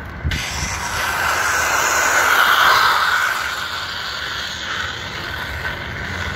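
A lowered bicycle's tyre skidding sideways across asphalt in a drift: a scrubbing noise that starts suddenly, builds for about two seconds, then eases off.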